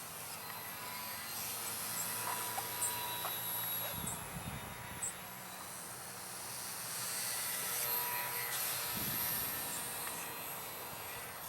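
Parkzone Ultra Micro P-40 Warhawk RC plane's small electric motor and propeller whining in flight, growing louder about seven seconds in and then fading again.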